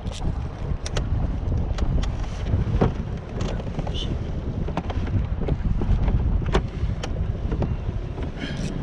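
Wind buffeting the microphone in a steady low rumble, with scattered sharp clicks and knocks at irregular intervals.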